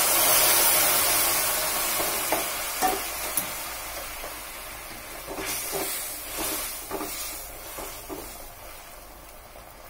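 Sugar syrup hitting semolina roasted in ghee in a hot kadhai, sizzling loudly at first and dying away over several seconds: the stage of suji halwa where the syrup goes in. A spatula knocks and stirs against the pan, most often in the second half.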